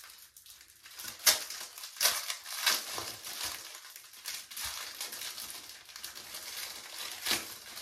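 Plastic packaging of a pack of HD wig caps crinkling as it is handled and opened, in irregular crackles with a few sharper ones.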